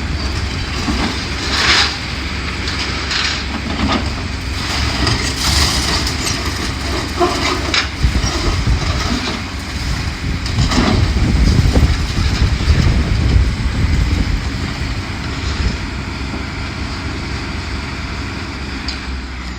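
Heavy demolition machine running with a steady low rumble while building debris cracks, crunches and clatters in repeated sharp crashes, busiest a little past the middle.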